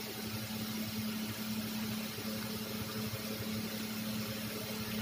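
A steady low machine hum with one constant pitch and a faint even hiss behind it.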